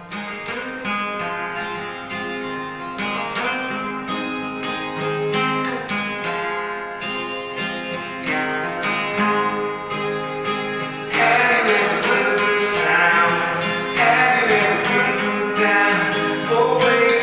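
Twelve-string acoustic guitar played in a steady pattern of notes, getting louder and fuller about eleven seconds in.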